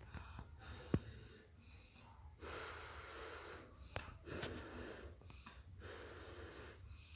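A person blowing hard onto a glued rubber sandal sole in three long puffs of about a second each. A sharp click comes about a second in.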